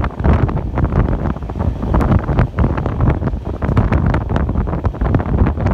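Wind buffeting the microphone held out of a moving Jan Shatabdi Express passenger coach, over the steady rumble of the train running along the track, with many irregular sharp clicks and clatters from the wheels on the rails.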